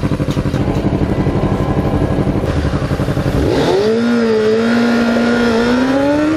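Honda CBR600 inline-four motorcycle engine idling with an even beat, then revving up as the bike pulls away about three and a half seconds in. Its pitch climbs, holds briefly, and climbs again as it accelerates.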